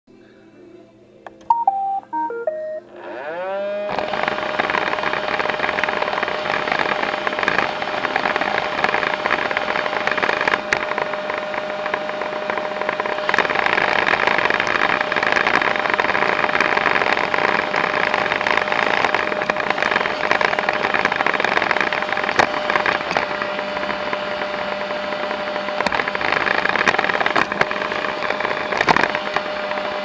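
Roomba robot vacuum playing its short start-up tune of beeps, then its motors spin up with a rising whine. It runs on with a steady whirring hum, and now and then a sharp click or knock.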